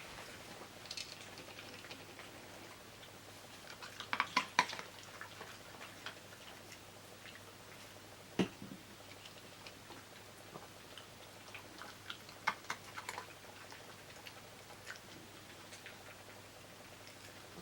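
A dog eating raw vegetables: scattered crisp crunches and clicks, a quick cluster about four seconds in, a single one near the middle, and another cluster about twelve seconds in.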